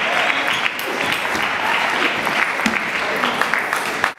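Spectators clapping steadily after a point in a table tennis match. The applause cuts off abruptly at the end.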